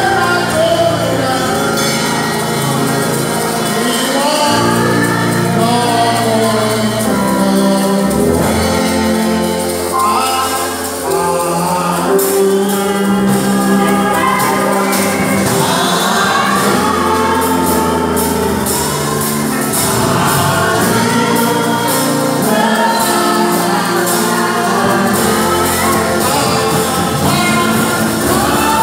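Live gospel worship music: a male lead singer on a microphone with a choir singing along, backed by a band with drums.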